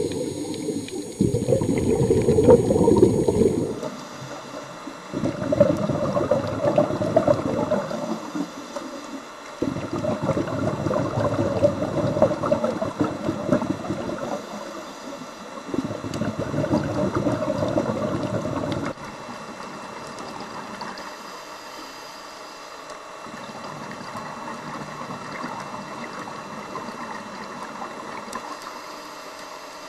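Scuba diver's exhaled bubbles from the regulator, heard underwater: several bubbling rushes of a few seconds each with short pauses between breaths. After about nineteen seconds the bubbling stops and only a fainter steady underwater hiss remains.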